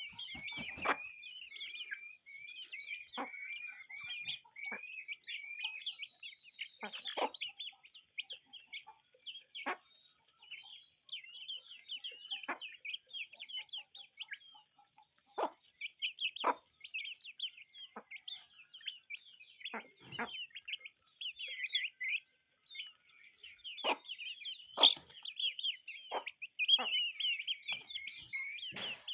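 A flock of chickens clucking and calling, many short overlapping calls, with scattered sharp knocks among them.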